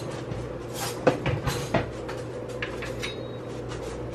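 Steady low background hum with a few short, light knocks and clicks of kitchen handling, a cluster about a second in and a couple more near three seconds.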